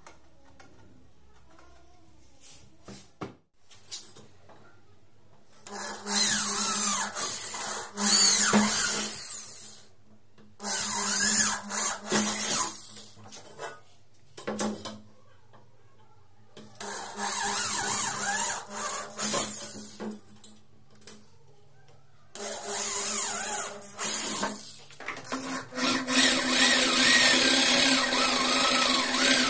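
Cordless drill boring holes through an aluminium window-frame profile with a twist bit, in five runs of a few seconds each with short pauses between; the first starts about six seconds in.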